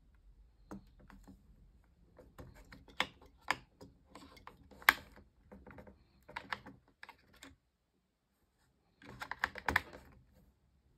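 Light plastic clicks and rattles of fingers handling the AA batteries and battery compartment of a Logitech MK470 slim wireless keyboard. The clicks come in uneven clusters, break off for a moment, then come back in a quick burst near the end.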